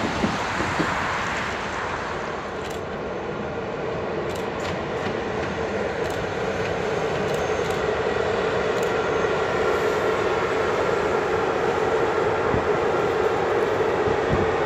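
CFR Class 40 (060-EA) electric locomotive approaching slowly with a passenger train. Its running noise is a steady hum with a mid-pitched tone that grows louder as it nears.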